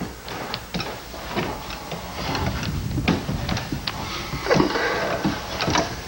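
Someone climbing a ladder up through a trapdoor into a bell tower: scattered knocks, scuffs and creaks of wood, close on a handheld camcorder's microphone.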